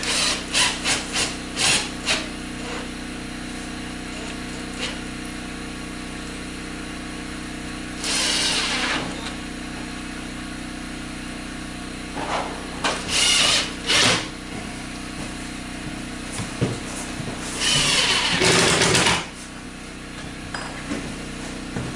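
Power drill driving screws in short runs, the longest near the end, with clicks and knocks of handling at the start.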